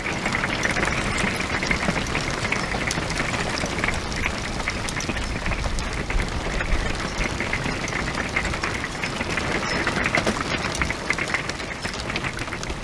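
Large hailstones pelting an RV and its roof-mounted solar panels: a dense, steady clatter of countless small hits.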